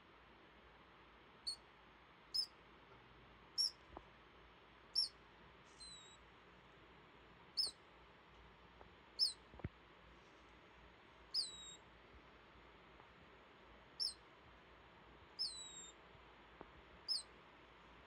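A sleeping degu snoring: a run of short, high-pitched squeaks, roughly one every second and a half, some ending in a short falling glide.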